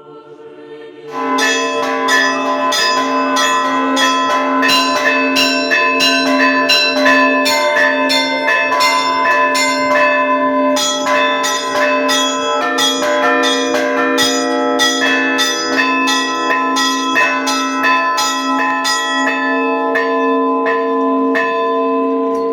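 Russian Orthodox church bells rung by hand on a belfry in a festive Easter peal. Starting about a second in, small bells are struck rapidly over a lower bell that strikes in a steady repeated pattern, and their tones ring on and overlap.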